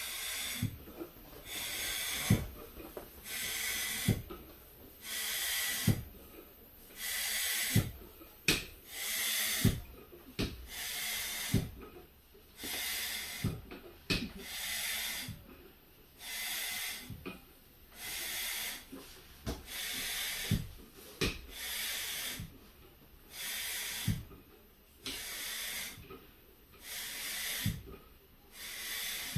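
Upright hand balloon pump being worked steadily: a hiss of air on each stroke, about one stroke every second and a half, with a sharp knock at the start of many strokes.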